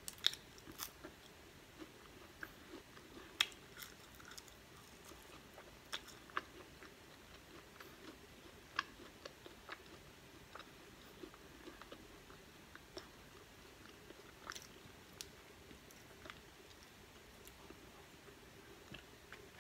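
Quiet, close-up chewing of a french fry: scattered soft mouth clicks and smacks, a few sharper ones near the start, over a faint steady hum.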